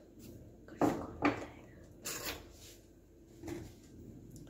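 Four short, soft knocks and clicks spread over a few seconds, from kitchen things being handled and set down.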